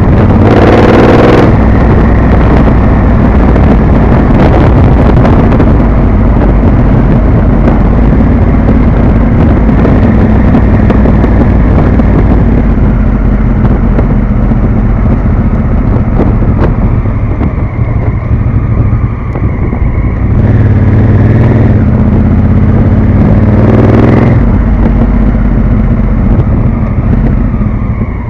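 Honda Africa Twin CRF1000's parallel-twin engine running as the motorcycle is ridden. It accelerates with rising revs about a second in and again around 20 to 24 seconds in, then eases off as the bike slows near the end.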